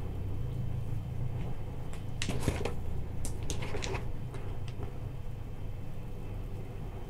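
Faint handling noise: a scatter of small clicks and knocks between about two and five seconds in, over a low steady hum.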